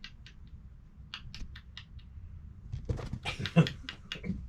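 Kittens playing with boots and their laces: light clicks and scratches, then a busier flurry of scuffling with one sharp knock about three and a half seconds in.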